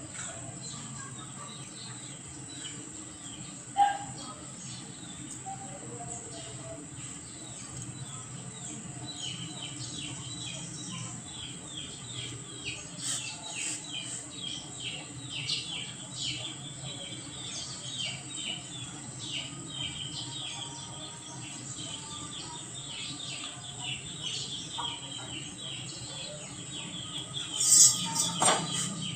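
Birds chirping in fast, repeated short calls over a steady high hiss, with a brief knock about four seconds in and a louder clatter near the end.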